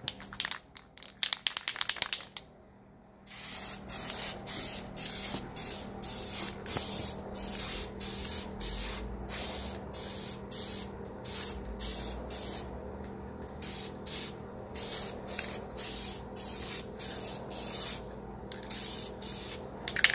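Aerosol can of vinyl spray paint hissing as it sprays a second coat onto a car panel, starting about three seconds in, in quick back-to-back bursts with brief breaks between them.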